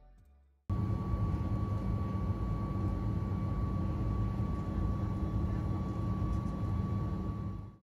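Jet airliner cabin noise as heard from a window seat while climbing out after takeoff. The engines make a steady rumble with a thin, steady whine over it. It starts suddenly about a second in and cuts off just before the end.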